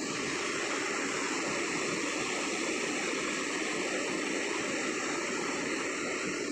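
Steady rushing and churning of water in the wake of a fast ferry running at about 30 knots.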